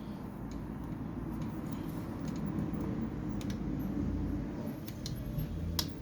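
Scattered small metallic clicks and taps of hand tools loosening the cam chain tensioner on a motorcycle engine, over a steady low rumble. The sharpest click comes near the end.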